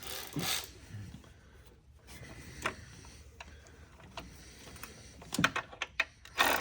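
Scattered light clicks and taps of hand tools and engine parts being handled in the engine bay, with a quick run of sharper clicks about five seconds in.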